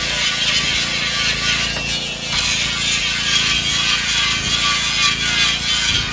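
Steady mechanical noise of running pump station machinery: an even hiss with a faint hum beneath it.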